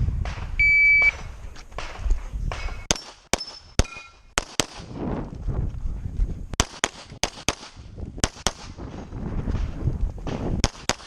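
Electronic shot timer beeps once, then a handgun fires over a dozen shots, mostly in quick pairs (double taps), with short pauses between groups as the shooter moves through an IPSC practical-shooting stage.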